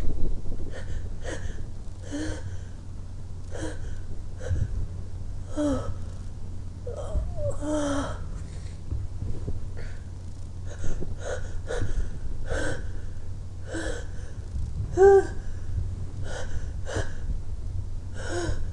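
A person's repeated gasping breaths, short and irregular at roughly one a second, some with a brief voiced cry, as they try to sneeze and the sneeze won't come.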